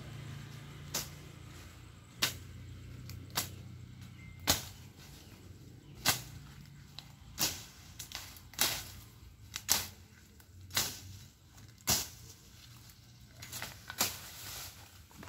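Hand blade cutting through thick, tall weeds: a sharp stroke about once a second, steady and even, with two strokes close together near the end.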